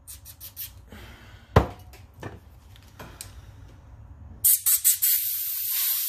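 A pressurised jet hissing as it is blown through a small-engine carburetor's jets and passages to clear them: a few short bursts about four and a half seconds in, then a steady hiss for about two seconds. Before it come small clicks and one sharp knock about a second and a half in.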